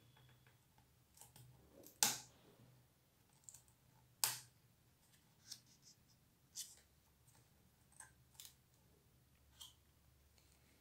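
Stiff cardboard pages and flaps of a lift-the-flap board book being handled, making scattered light clicks and taps. Two louder snaps come about two and four seconds in.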